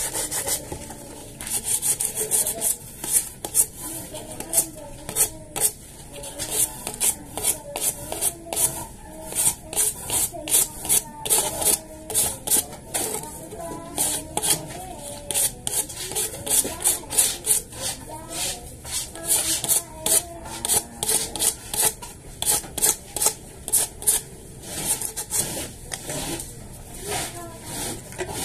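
A hand tool scraping a hard surface in quick, irregular repeated strokes, a few strokes a second.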